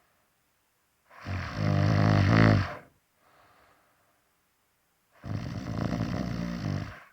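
Snoring: two long snores about four seconds apart, with a faint breath in between.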